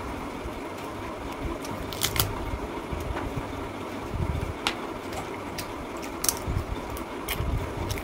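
Close-miked eating: scattered small clicks and smacks of a mouth chewing a handful of rice, over a steady low hum.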